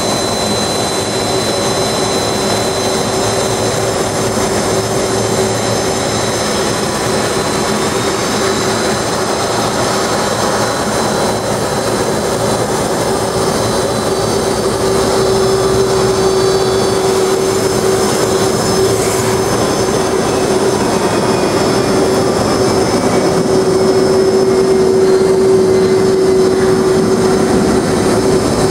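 Boeing 767-300's twin turbofan jet engines at taxi power: a steady whine over a rumble, growing gradually louder as the jet taxis up and passes close by.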